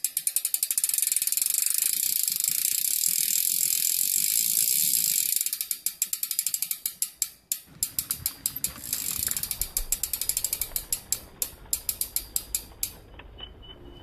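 Mountain bike rear freehub clicking as the wheel spins freely. The pawls tick so fast at first that the clicks run together, then about six seconds in they slow to separate clicks that grow further apart and stop near the end.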